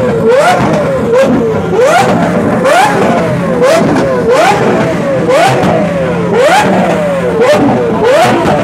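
A sports car engine revved over and over, about once a second: each rev climbs quickly in pitch and then falls back before the next, with a steady engine hum beneath.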